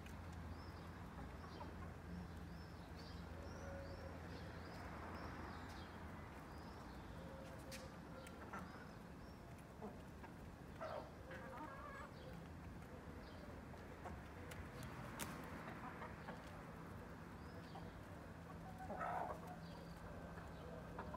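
A backyard flock of hens with a rooster, clucking now and then, the loudest cluck near the end, with a quick run of faint high chirps in the first few seconds.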